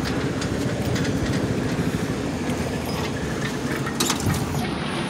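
Steady engine drone of a ride-on grass mower working the ballpark outfield, with a couple of sharp clicks about four seconds in.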